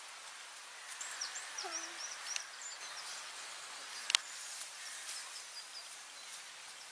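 Outdoor ambience with a run of short, high bird chirps between about one and two and a half seconds in, and one sharp click about four seconds in.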